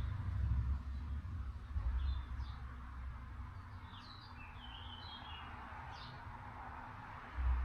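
Wind buffeting the microphone in uneven low rumbles, strongest at the start and again near the end, over a steady outdoor hiss. A few short bird chirps come through in the middle.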